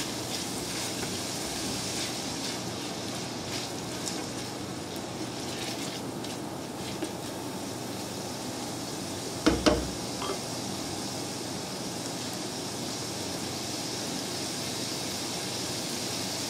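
Diced bell peppers sizzling gently in olive oil in a stainless steel sauté pan, sweating slowly without browning. A silicone spatula scrapes the pan now and then in the first few seconds, and there is one short, sharp knock about halfway through.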